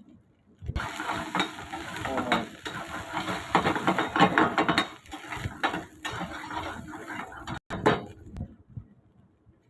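A spatula stirring and scraping food in a pan, with the food sizzling in hot oil and irregular clinks of utensil on metal. It starts about a second in and stops near the end.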